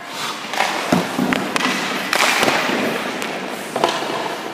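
Ice skate blades scraping across the rink ice, with a few sharp knocks of hockey stick and puck, about a second in and again near the end.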